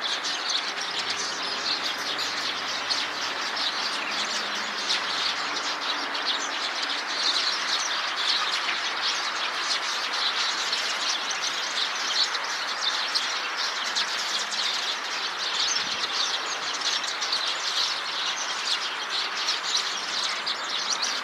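A flock of Eurasian tree sparrows chirping together, many short calls overlapping into a continuous chatter.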